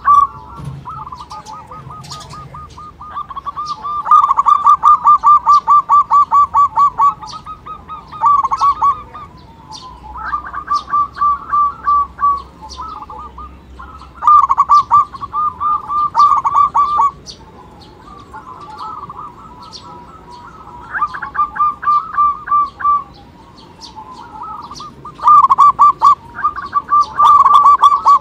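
Zebra doves (local perkutut) calling in repeated phrases of rapid staccato coos, about seven a second, each phrase lasting one to three seconds. Loud phrases alternate with fainter ones, and there are faint high chirps in the background.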